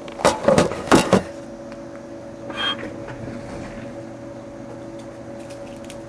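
A quick cluster of sharp plastic clicks and knocks as the keyboard and its Alps switch are handled, then a brief rustle, over a steady faint hum.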